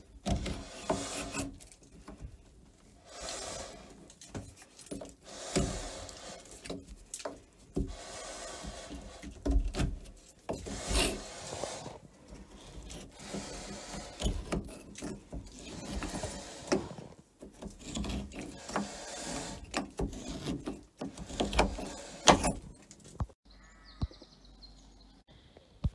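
Hand scraper scraping old flaking paint and black coating off the wooden timbers of an old carvel-built boat, in irregular strokes of differing length. The scraping stops about three seconds before the end, leaving only faint sound.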